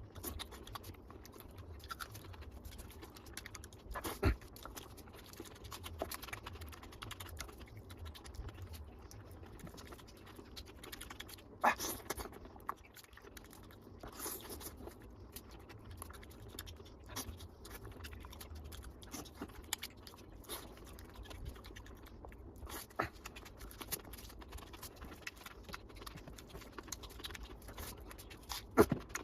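Close-miked eating sounds: a person chewing mouthfuls of mutton curry with rice, with many soft wet clicks and smacks. A few sharper knocks stand out, the loudest near the middle and near the end.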